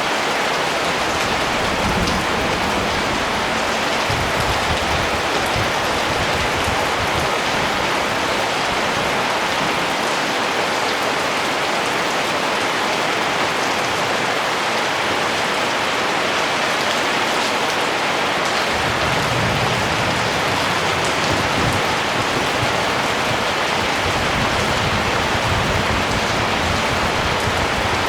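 Steady rain falling, an even, dense hiss of drops with no letup. A soft low rumble comes and goes underneath.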